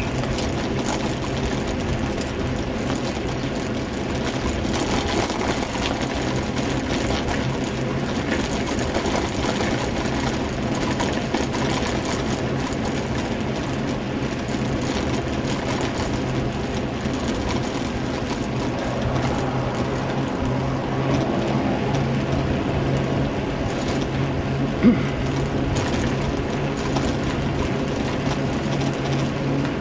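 Bicycle ridden along a paved road: a steady rattling, clicking mechanical noise from the bike over road noise, with one sharp knock near the end.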